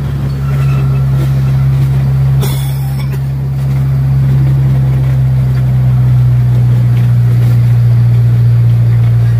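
Small tourist train's engine running with a steady low drone, heard from aboard the moving train. A short hiss about two and a half seconds in.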